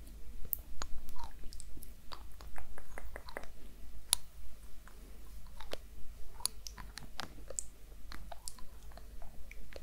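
Long fingernails tapping and squeezing the rubber-bulb dropper cap of a small glass oil bottle, close to the microphone: irregular sharp clicks and crackles, a few a second.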